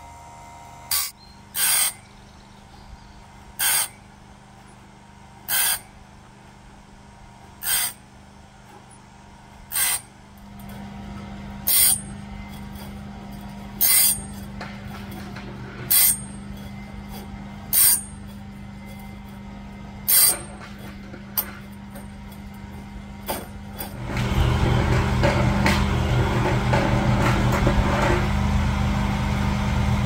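Electric chainsaw sharpener, its grinding wheel brought down on the teeth of a sawmill bandsaw blade one after another: a short grinding burst about every two seconds over the steady hum of its motor. About two-thirds of the way in, a louder steady mechanical running noise takes over.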